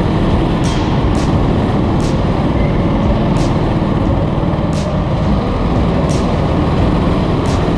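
Go-kart engines running with a steady low rumble, heard from the driver's seat, with faint high ticks every second or so.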